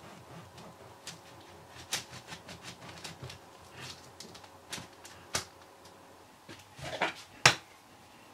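Knife sawing through a baked brioche loaf, a series of short crackling strokes through the crust, with two louder sharp clicks near the end.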